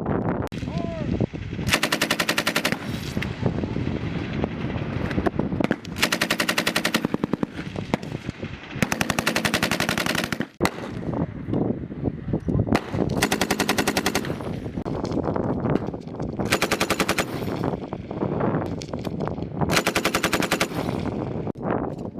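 Machine gun firing six short bursts of about a second each, a few seconds apart, each a rapid string of shots.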